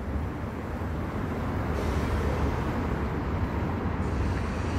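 Steady city street traffic noise: a low, even rumble of vehicles on nearby roads.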